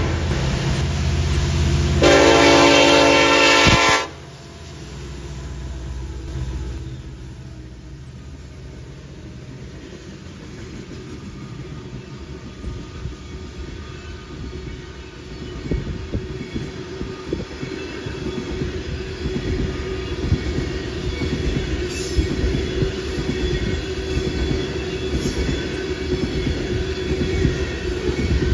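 Freight locomotive's air horn sounds one blast of about two seconds, a couple of seconds in. After it, the loaded coal train rumbles past with wheels clicking on the rails, growing louder in the second half.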